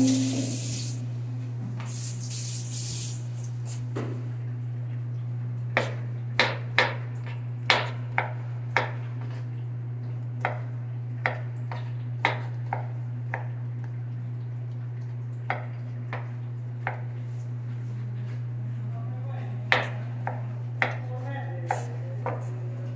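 Chef's knife chopping kiwi fruit on a plastic cutting board: sharp, irregularly spaced knocks of the blade striking the board, about eighteen in all, over a steady low hum. A louder knock and some brief hissing scrapes come in the first three seconds.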